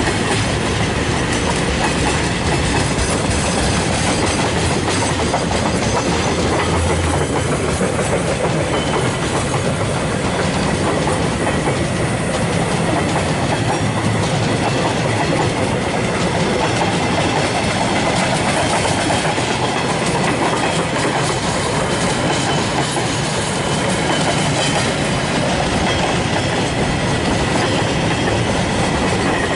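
Freight train of empty flat wagons rolling past, a steady running noise of steel wheels on the rails.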